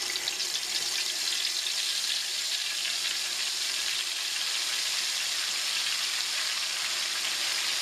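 Ground herb paste of hibiscus and bhringraj leaves frying in hot coconut oil, a steady dense sizzle as the paste's moisture boils off in a thick froth.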